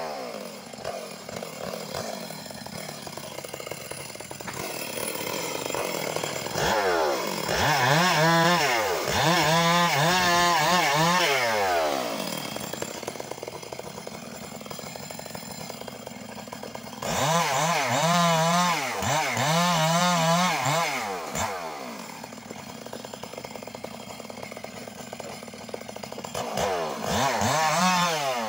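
Stihl two-stroke chainsaw ripping a suren log lengthwise into beams. It idles, then revs to full throttle three times for several seconds each, its pitch wavering under load as the chain cuts through the wood.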